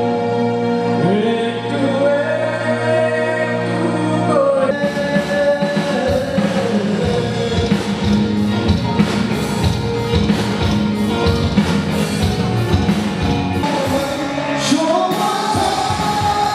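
Music with singing: held notes and a gliding voice for the first few seconds, then a steady drum beat comes in at about five seconds, with singing back near the end.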